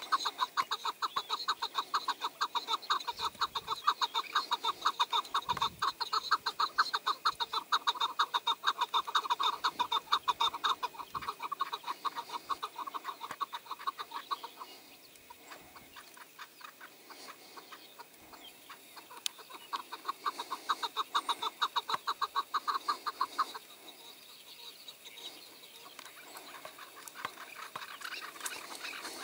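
Chukar partridge calling: a long, fast run of repeated chuck notes that breaks off about halfway through, then a shorter run that resumes a few seconds later.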